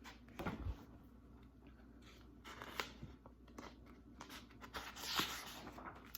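Faint paper rustling and handling noises from a picture book, its page being turned, with a light bump about half a second in and a longer rustle near the end.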